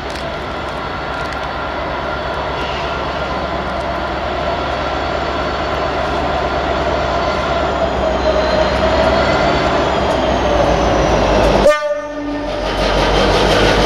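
Class 59 diesel-electric locomotive approaching at the head of a heavy freight train, its two-stroke EMD engine running with steady tones and rumble that grow gradually louder. A short, sharp break interrupts the sound near the end.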